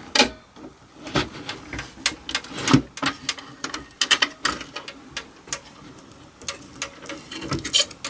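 Hands handling a braided cable harness and plastic connectors inside a server case, making irregular clicks, taps and rustling. The loudest knocks come about a quarter second in and near the three-second mark.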